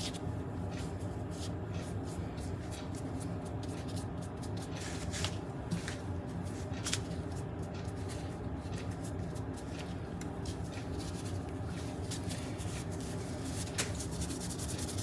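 A rag rubbing and wiping wet stain off a small wooden tool handle, with light rustling and a few sharp handling clicks, over a steady low hum.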